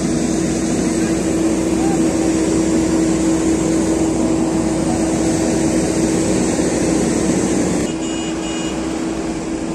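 Backhoe loader's diesel engine running steadily with a strong hum while its bucket lifts the front of a pickup truck; the sound drops in level about eight seconds in.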